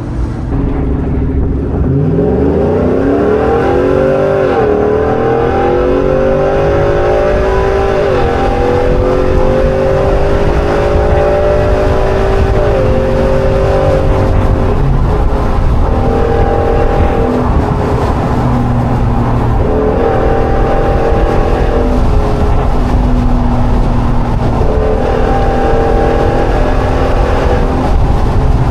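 Ford F-150 Tremor's 5.0 Coyote V8 running through open exhaust cutouts, accelerating with a rising note through three upshifts of the automatic gearbox a few seconds apart. It then cruises, the note rising and easing a little.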